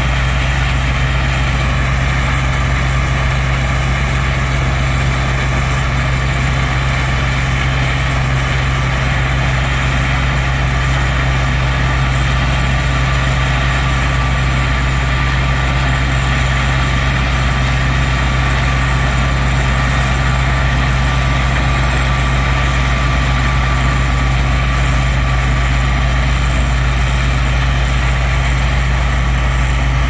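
A heavy engine running steadily at an unchanging pitch, a constant low drone with no revving or breaks.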